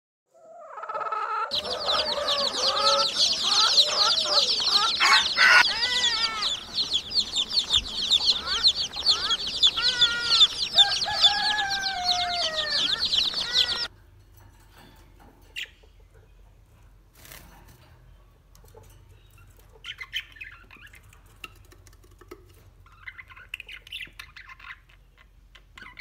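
A crowd of young chickens peeping densely and rapidly, mixed with lower clucking calls that glide downward. About fourteen seconds in it cuts off abruptly, leaving only a few faint, scattered peeps.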